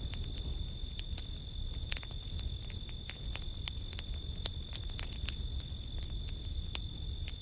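Steady high-pitched chorus of crickets, with scattered sharp crackles from a small campfire burning in a fire pit and a low rumble underneath.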